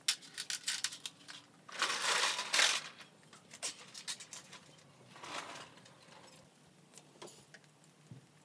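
Rustling and crinkling with scattered light clicks and knocks, from foil-faced foam insulation board being handled and pressed down between timber battens on a van floor. The rustling is loudest about two seconds in, with a shorter burst about five seconds in.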